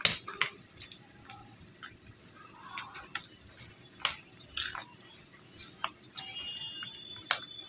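A spoon stirring makhana raita (fox nuts in yogurt) in a stainless steel bowl, clinking and knocking against the metal sides at irregular intervals.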